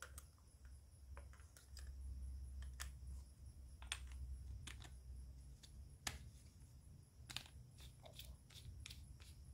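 Faint, irregular clicks and scrapes of an 18650 lithium-ion cell being slid into a flashlight's body and the tail cap being screwed on, with a few sharper clicks near the middle, over a low steady hum.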